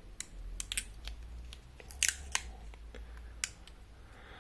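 Irregular small, sharp clicks and taps of tools and plastic phone parts being handled during a smartphone screen repair, over a faint low hum.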